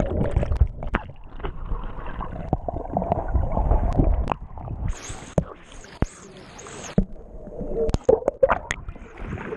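Canyon stream water sloshing and gurgling, with scattered sharp knocks and clicks.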